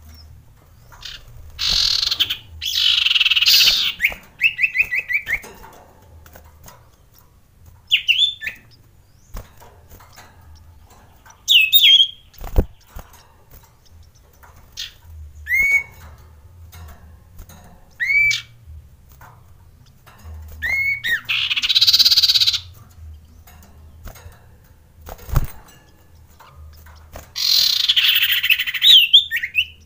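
Male common iora calling: three harsh, rasping chatters, the first followed by a quick trill, with short whistled notes between them. Two sharp knocks fall in the middle of the run.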